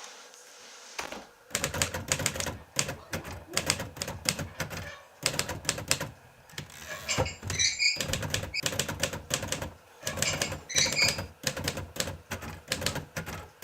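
Typewriter keys striking in fast runs of clicks, starting about a second in, with short pauses between runs.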